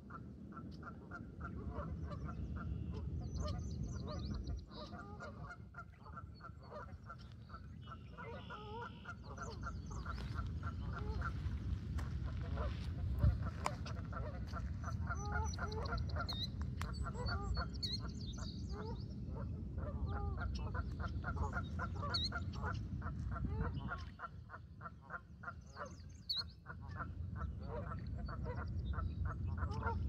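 Waterfowl honking and calling in a rapid, continuous series, with higher small-bird chirps scattered over it and a low rumble underneath that drops away twice.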